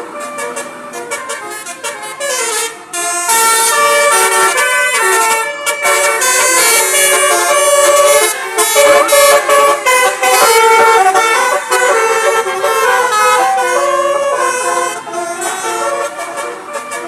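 A tour bus's Basuri telolet horn playing a tune: a run of loud, multi-tone horn notes stepping up and down in pitch, growing louder about three seconds in.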